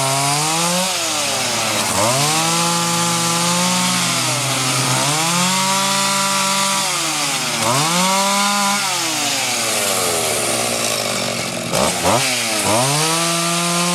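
Two-stroke gas chainsaw cutting red oak limbs, its engine revving up into each cut and falling back between them, about five times, with a brief drop toward idle just before the last rev.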